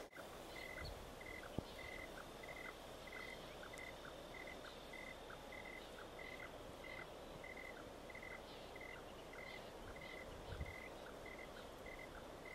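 Faint, even chirping of a cricket, a short note repeated about two and a half times a second without a break, with a soft click about a second and a half in.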